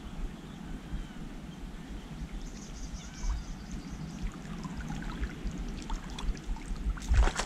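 Steady low rumble of wind on the microphone, with faint short chirps in the middle and a brief knock and rustle about seven seconds in as the lure and line are handled.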